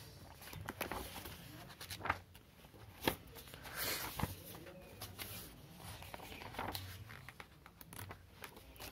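Pages of a thick paperback book being turned and riffled by hand: paper rustling, with scattered sharp flicks and taps and a longer swish of pages about four seconds in.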